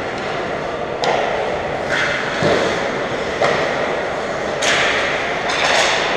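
Ice hockey play in an arena: sharp clacks of sticks on the puck and short bursts of skate blades scraping the ice, over a steady arena hum.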